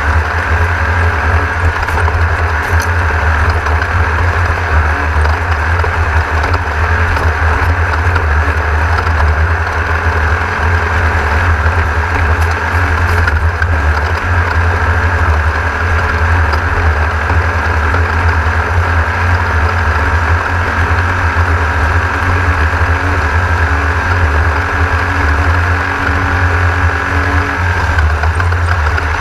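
Air-cooled VW-based 1600 engine of an off-road race car running with a steady, loud drone, heard from inside the car, with a few faint knocks.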